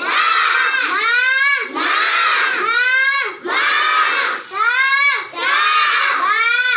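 A group of children's voices chanting in a regular, repeating pattern, one short rising phrase after another.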